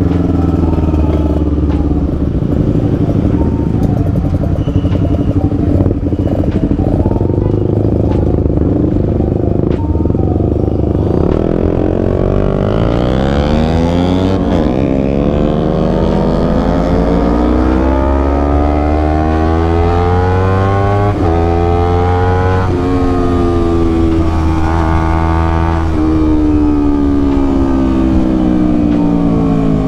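Honda CBR250RR's parallel-twin engine heard from the rider's seat, with low wind rumble. It holds a steady low note at first, then climbs in pitch as the bike accelerates about halfway through, with short drops at upshifts, and eases off near the end.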